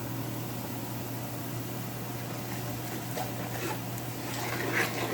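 Chopped garlic and chili frying in hot peanut oil: a steady sizzle over a constant low hum, with sharper crackles from about three seconds in.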